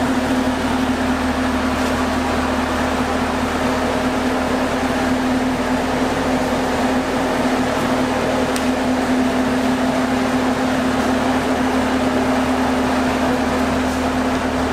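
Steady mechanical hum with a constant low drone, unchanging throughout.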